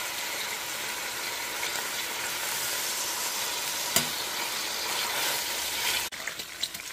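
A whole pack of bacon frying in a large stainless steel pot, the strips still pale and early in cooking: a steady sizzling hiss. One sharp click comes about four seconds in, and the sizzle drops away abruptly about six seconds in.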